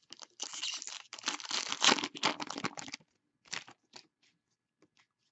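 Plastic trading-card pack wrapper being torn open and crinkled for about two and a half seconds, followed by a few light clicks of the cards being handled.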